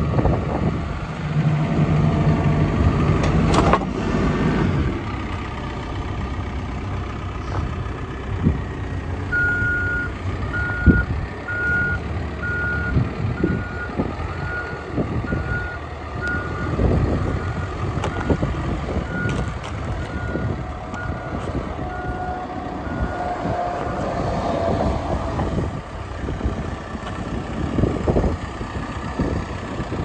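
Cat 420F backhoe loader's diesel engine running, with its backup alarm beeping steadily for about fourteen seconds in the middle, the sign that the machine is in reverse.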